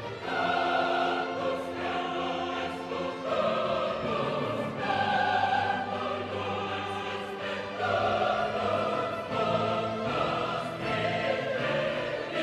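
Background music: choral singing with orchestra, long held chords changing every second or two.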